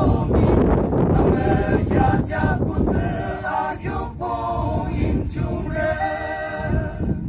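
A group of young male voices singing a song together in harmony, with an acoustic guitar accompanying them.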